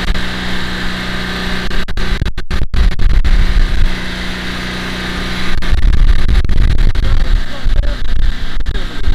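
Gusts of wind buffeting the microphone, coming in about two seconds in and again from about halfway, over a steady engine hum.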